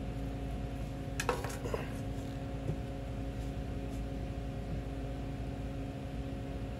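A few light metallic clinks from rusty steel parts being handled, bunched together about a second in with one more soon after, over a steady electrical hum.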